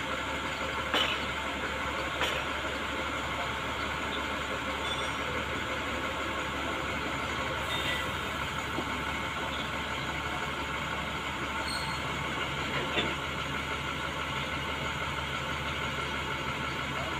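A train of ballast hopper wagons rolling past during a reverse shunting move: a steady rumble of wheels on the rails, with a few short clicks.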